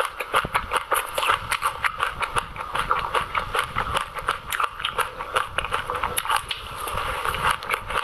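Close-miked chewing of passion fruit pulp coated in white sesame seeds, the seeds crunching as they are bitten, in a quick, uneven run of crisp clicks.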